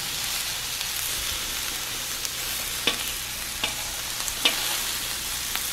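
Strips of beaver meat sizzling in oil on a hot flat-top griddle. A few light clicks and scrapes from a knife and fork against the griddle plate come in the second half.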